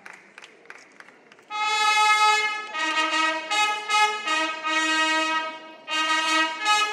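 Faint scattered clapping, then about a second and a half in a fanfare on long herald trumpets begins: a run of held notes stepping up and down in pitch, with a short break near the end before it resumes.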